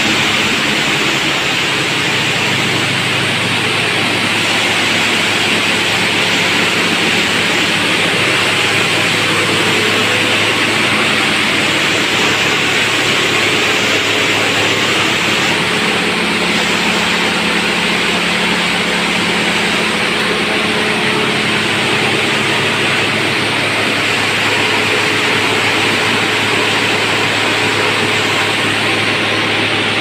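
Industrial vegetable washing machine running: water churning and splashing in its frothing wash tank, a loud, steady rushing noise over a low, steady machine hum.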